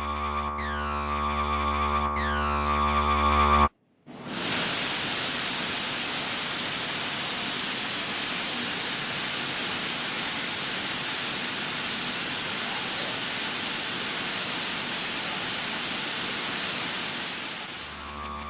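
A synthesizer-style drone with steady tones and falling sweeps cuts off abruptly a few seconds in. After a brief gap, a Smoke Cloak security fog generator discharges with a loud, steady hiss, which fades near the end as the drone comes back.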